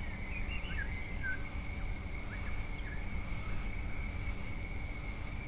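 Faint wild birds chirping a few short notes over a steady high-pitched drone and a low background rumble.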